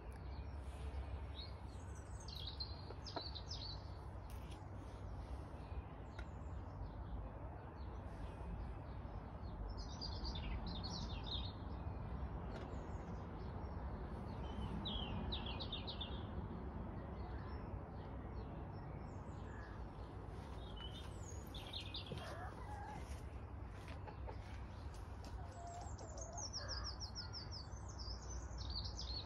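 Small birds chirping in short phrases every few seconds over a steady low background rumble, ending in a quick falling run of notes.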